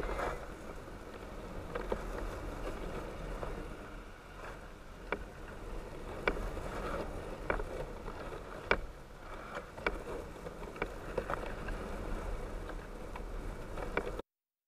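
Wind buffeting the microphone of a camera on a rising weather-balloon payload: a steady low rumble with irregular sharp ticks and snaps, about one every second or so. The sound cuts off abruptly near the end.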